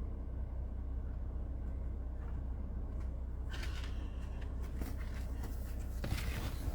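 Low steady rumble of an idling vehicle, with rustling and handling noises starting about halfway through.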